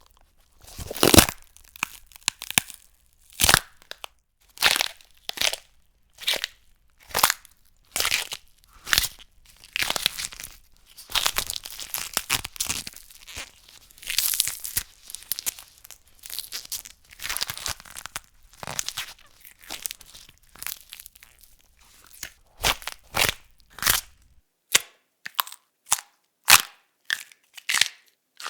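Bone breaking and cracking sound effects: a string of sharp cracks and crunches, one after another with short gaps, some drawn out into a grinding crunch and several quick short snaps near the end.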